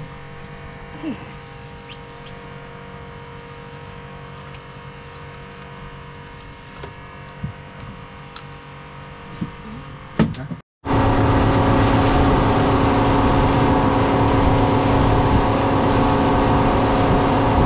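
A boat engine's steady hum with a few light clicks, then, after an abrupt cut about ten seconds in, the boat engine running much louder under way with a rushing hiss of wind and water.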